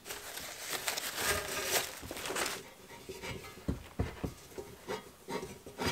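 Steel two-stroke exhaust expansion chamber handled on a workbench: paper-towel rustling and rubbing against the pipe for the first two and a half seconds, then several light knocks of metal on the bench.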